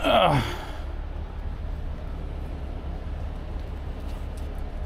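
A heavy tow truck's diesel engine idling as a steady low rumble. Right at the start there is a short, loud sound that falls quickly in pitch.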